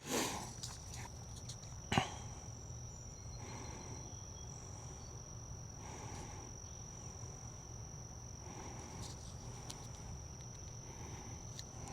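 A steady, high-pitched insect trill, unbroken throughout, with a single sharp click about two seconds in.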